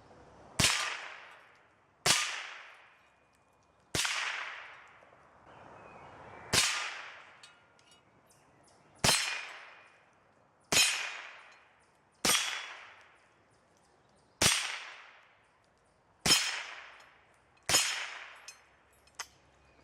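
Ruger 10/22 .22 LR rifle firing ten single shots at a steady, unhurried pace, one about every one and a half to two and a half seconds, each crack trailing off in an echo.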